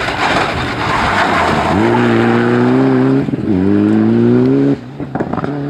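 Rally car passing at speed: a loud rush of noise as it goes by, then the engine note climbing hard through the gears, dropping at an upshift and climbing again. Near the end the engine note drops suddenly on a lift, with a few sharp cracks.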